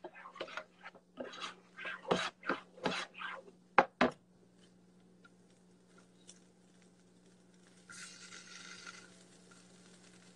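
A spatula scraping and stirring crumbled tofu in a skillet, with a few sharp knocks against the pan, for about the first four seconds. After that only a low steady hum remains, with a short hiss about eight seconds in.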